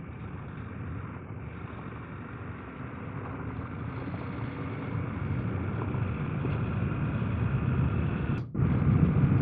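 Riding noise from a KTM 890 Adventure R on a dirt road: a steady rush of wind and running engine that grows gradually louder as the bike gathers speed. It cuts out briefly about eight and a half seconds in.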